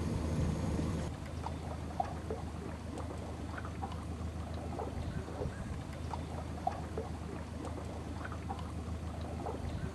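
A boat's motor hums steadily over moving water. About a second in the sound drops to a quieter low hum, with small scattered water plops and lapping.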